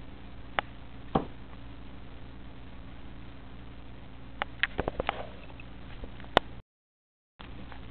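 A cat's claws and paws scraping and tapping on a cardboard scratcher: a few sharp clicks, a quick cluster of them four to five seconds in, and the loudest one just after six seconds, over a steady low hum. The sound cuts out briefly near the end.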